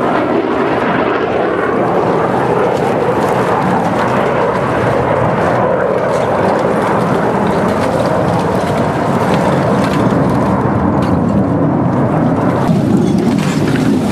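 Loud, steady jet engine noise from Blue Angels F/A-18 Hornets flying past overhead. It changes abruptly near the end, as the high part of the noise drops away.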